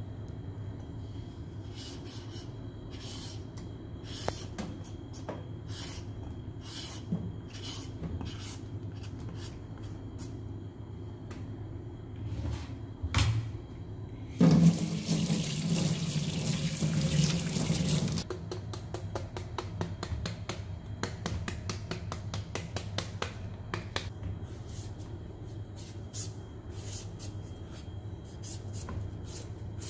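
A serrated papaya shredder scraping down a peeled green papaya in repeated strokes. About halfway through, a tap runs for about four seconds as the papaya is rinsed, then the shredding resumes in fast, even strokes, several a second.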